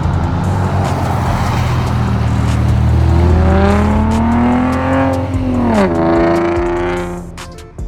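A car engine runs loud under acceleration, its pitch climbing slowly, then dropping sharply about six seconds in. The sound fades near the end.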